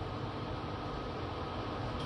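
Steady hum and hiss of running workshop machinery, with a thin steady whine above it.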